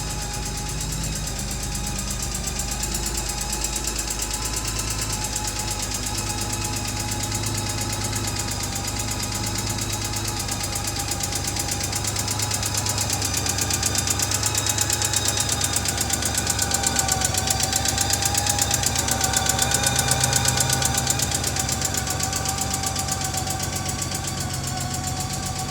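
2006 Honda Gold Wing GL1800's flat-six engine running with a rapid, steady ticking, which the owner suspects is a valve or a fuel injector. It grows louder through the middle and eases off near the end.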